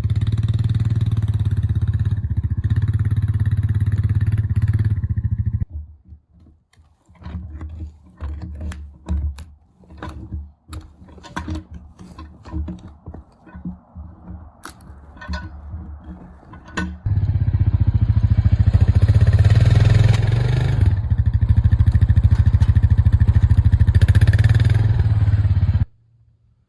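Engine running steadily, stopping suddenly about six seconds in; then scattered knocks and clatter, then the engine running again from about seventeen seconds until it cuts off just before the end.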